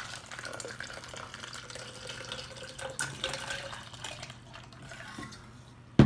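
Water poured from a stainless steel insulated bottle into a plastic shaker cup: a steady splashing pour that tails off about four and a half seconds in. A sharp knock right at the end.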